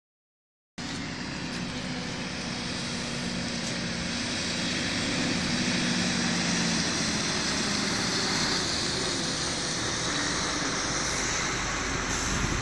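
Heavy road vehicles' engines running as they drive slowly away. A low engine hum fades out about seven seconds in, under a steady rushing noise.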